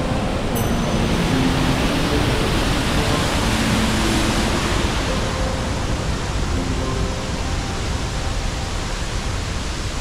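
Steady, even rush of water from a mountain stream's rapids.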